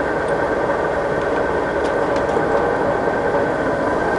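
Scott 6266 gap bed centre lathe running steadily at its top spindle speed of 1120 rpm, with an even mechanical whir and hum from the headstock gearbox and spindle.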